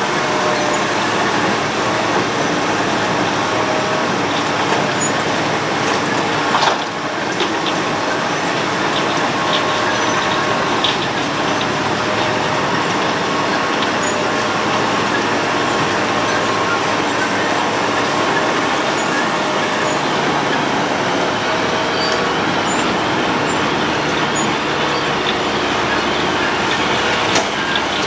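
Road planer (cold milling machine) working: its engine and cutting drum make a loud, steady grinding noise, with a sharp knock about seven seconds in and another near the end.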